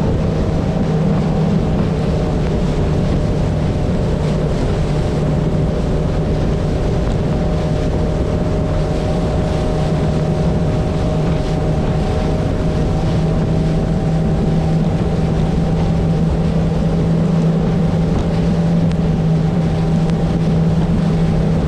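Outboard motor of a small skiff running under way at a steady pitch, a constant drone, with wind rumbling on the microphone and water rushing past the hull.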